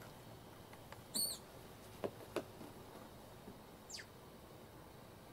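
A few faint, short, high-pitched chirps that fall in pitch, one about a second in and another near four seconds, with a couple of soft clicks between them.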